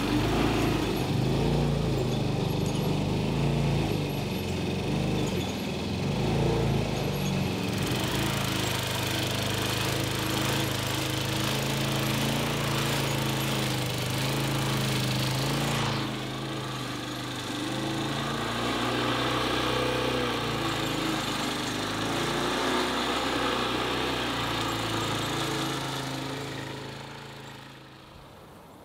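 Walk-behind rotary lawn mower running steadily as it cuts long grass. It fades out over the last couple of seconds.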